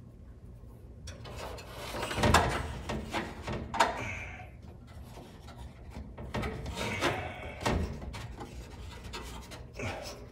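Handling noise as wiring and vacuum hoses are pushed and pulled behind a car's bare metal dash: irregular rubbing and scraping with scattered light knocks, the loudest about two and a half seconds in.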